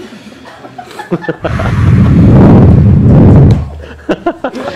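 Loud rumbling handling noise on the camera microphone for about two seconds as the camera is jostled, with a few short clicks before and after it.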